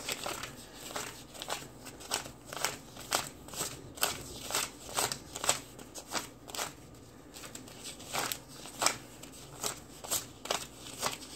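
One-dollar paper bills being counted by hand, each bill flicked off the stack with a crisp papery snap, about two a second, with a short lull past the middle.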